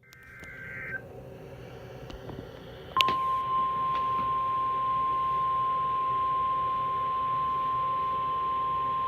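Weather radio emergency alert signal: the end of a SAME digital header burst, a short warbling data buzz, over the first second. After a pause of radio hiss, the steady single-pitch 1050 Hz warning alarm tone starts about three seconds in and holds, announcing a new warning broadcast.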